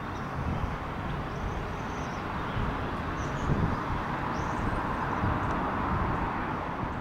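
Distant aircraft engine noise across an airfield: a steady rushing roar over a low rumble, growing a little louder toward the end.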